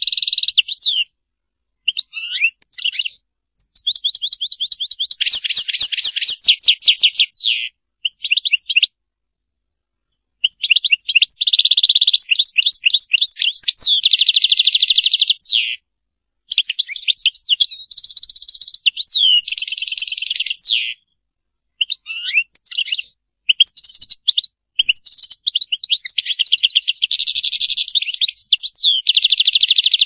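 European goldfinch singing: rapid, high-pitched runs of twittering trills and buzzy notes, delivered in phrases broken by brief pauses.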